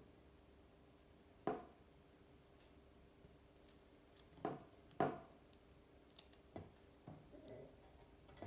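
A few light knocks and clicks of parts being handled: one about a second and a half in, two close together around five seconds in, then smaller ticks and a soft rustle near the end.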